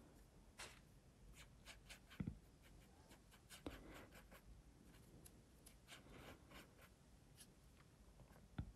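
Very faint scratchy strokes and dabs of a watercolour brush on paper, scattered and irregular, with a soft low thump about two seconds in and another near the end.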